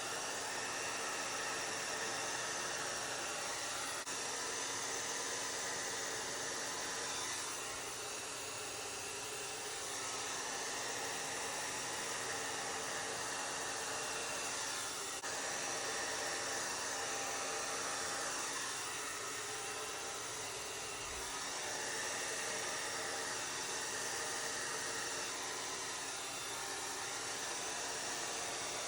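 Hair dryer running steadily at a strong setting: a rush of blown air over a steady motor hum, dipping slightly now and then. It is blowing acrylic paint outward across a canvas in a bloom-technique blowout.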